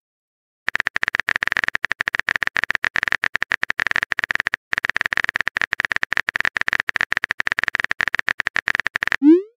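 Rapid stream of simulated keyboard-typing clicks from a texting app as a message is typed out, starting under a second in, with a brief pause about halfway through.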